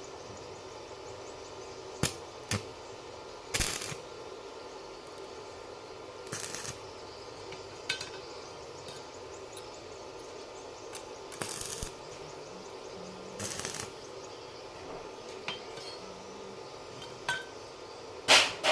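Scattered metallic clinks and short scraping rattles from steel pieces and tools being handled, over a steady hum. The clinks come every second or few; the loudest is near the end.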